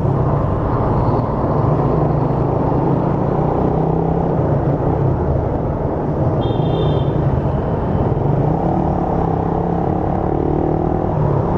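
Motorcycle riding noise picked up by a microphone inside a full-face helmet with the visor semi-closed: steady wind rush over the helmet and a low engine drone. A brief high beep sounds about six and a half seconds in.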